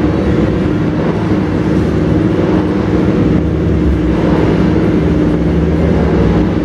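Engines of parading classic cars and motorcycles running in a steady, continuous drone at an even pitch.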